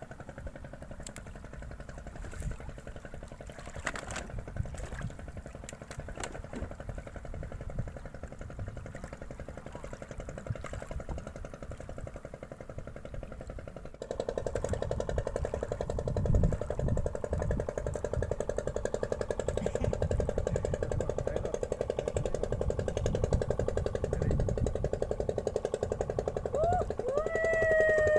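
A small engine running steadily with a fine even pulse, suddenly louder from about halfway through. Near the end come a few short falling calls.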